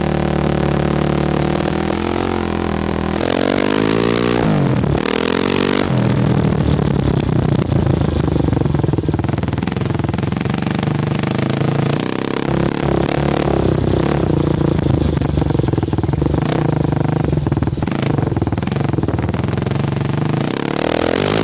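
Kawasaki KFX 400 ATV's single-cylinder four-stroke engine running under riding, with popping and crackling from the exhaust. It revs up steeply about three seconds in and drops back near five seconds. Picked up right beside the muffler, so the sound is distorted.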